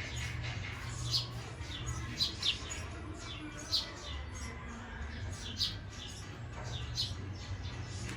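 Birds calling: short, high, downward-slurred chirps repeated at irregular intervals, every half second to a second and a half, over a steady low rumble.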